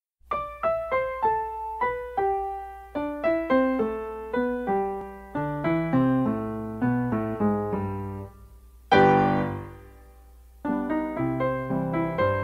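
Solo piano music: a melody of single struck notes at about three a second, with a loud chord about nine seconds in that rings out and fades before the playing picks up again.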